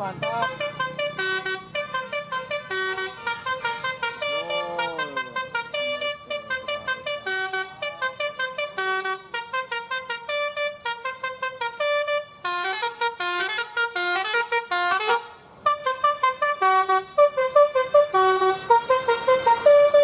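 A Basuri-type "telolet" musical horn on a tour bus playing a rapid melody of short, stepped notes, with a rising-and-falling siren-like glide a few seconds in and a brief break near three-quarters through.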